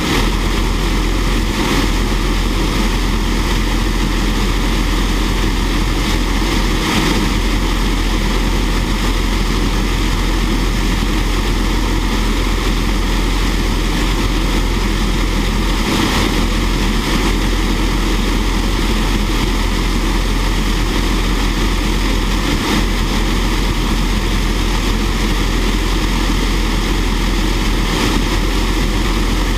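Fairchild J44 turbojet running at a steady speed on a ground test stand, a loud, even rush of jet noise that neither spools up nor winds down.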